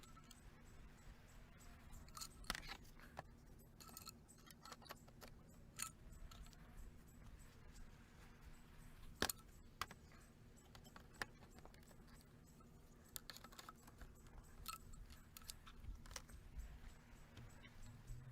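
Faint, scattered clicks and light knocks of composite raised-bed timbers and plastic snap-lock brackets being handled and stacked, the sharpest about nine seconds in, over a low steady hum.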